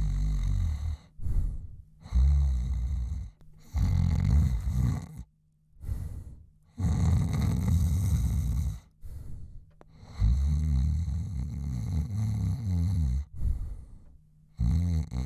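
A man snoring: a run of about six loud, low snores, each a second or two long, with short quiet breaths between them.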